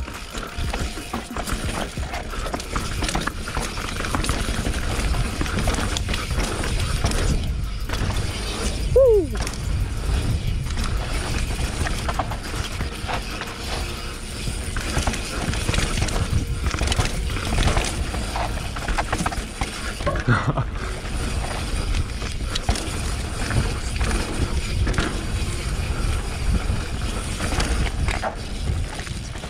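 Radon Slide enduro mountain bike descending a rocky dirt trail: Schwalbe Magic Mary tyres rumbling over dirt and stones with constant rattling and clicking from the bike. About nine seconds in, a brief falling squeal cuts through.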